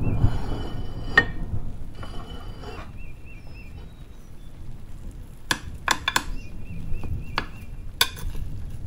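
Metal spatula clinking and scraping against a glass baking dish while a baked broccoli casserole is cut and lifted out: several sharp clinks, most of them in the second half. A rushing noise fills the first few seconds.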